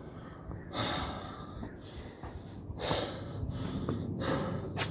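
A man breathing hard to catch his breath after jumping rope, with about three deep, noisy breaths.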